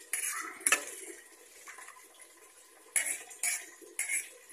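Steel spoon stirring rice in water in a stainless steel pot, clinking against the pot's sides: two sharp clinks near the start and three more about half a second apart near the end, with faint sloshing between.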